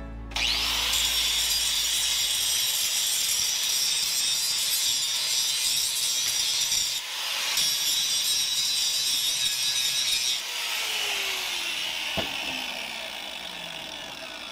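Makita angle grinder grinding steel held in a bench vise: a steady, loud, high-pitched grinding that dips briefly about seven seconds in. About ten seconds in the grinder is switched off, and its motor winds down with a falling whine.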